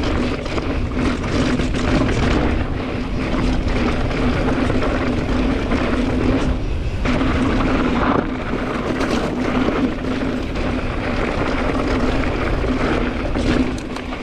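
Mountain bike ridden fast down a rough trail: a steady buzz from the rear freehub coasting, which drops out briefly about seven seconds in, over wind rumble on the microphone and knocks from the tyres and suspension taking hits.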